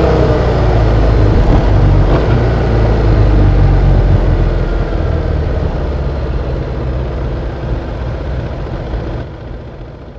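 Yamaha XSR700's 689 cc parallel-twin engine running under way, heard from the bike itself; its pitch falls in the first second, and the sound fades away toward the end.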